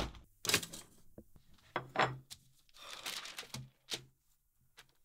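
A door shutting with a thump, then a run of short rustles and knocks of someone sitting down at a table and handling a newspaper, the loudest about two seconds in.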